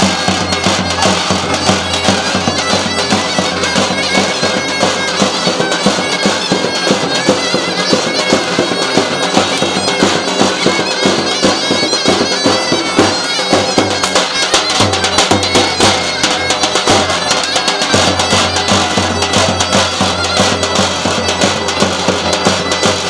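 Loud folk dance music: a shrill reed wind instrument plays a melody over a steady drone and a drum beat.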